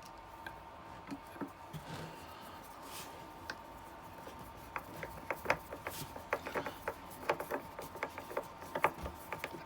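Screws being driven by hand with a screwdriver into pilot holes in a solid oak door to fit a hinge. It starts as faint turning and rubbing, then from about five seconds in comes a run of quick, irregular clicks, several a second.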